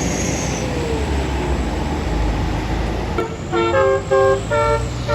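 Traffic rumble from a bus, then about three seconds in a bus's telolet horn starts playing a quick tune of short notes switching back and forth between two pitches.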